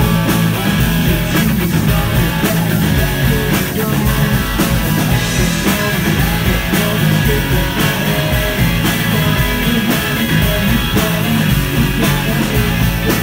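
Live rock band playing loudly: electric guitars over bass and drums, steady throughout.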